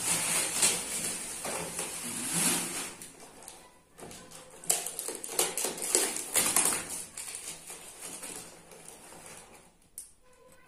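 Plastic bubble-wrap packaging rustling and crinkling as a boxed item is pulled out of it. This is followed by a run of sharp scrapes and crackles as the cardboard box is handled and its taped end worked open.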